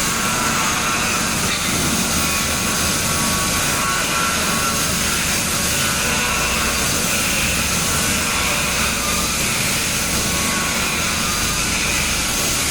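CNC plasma cutter's arc cutting through metal plate: a loud, steady hiss with a faint high whine running under it.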